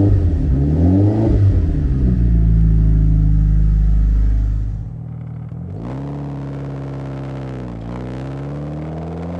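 Mitsubishi Lancer Evo VI's turbocharged four-cylinder engine just after a cold start: a few quick revs, then running steadily. About five seconds in the level drops suddenly, and the engine rises steadily in pitch, falls sharply near the end and climbs again.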